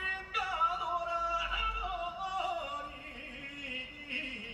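A man singing a trot melody unaccompanied into a microphone, holding long notes and sliding between them, with a wavering held note near the end.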